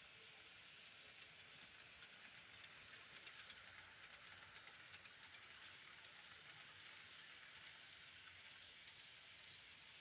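Faint running of Bachmann model locomotives on the track: a soft steady hiss with a few light clicks, near silence overall.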